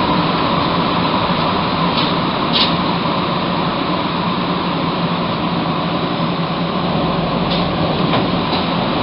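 Rubber-tyred MR-63 metro car heard from inside, running into a station and slowing. It makes a steady rumble with a low hum, and a few light clicks and knocks.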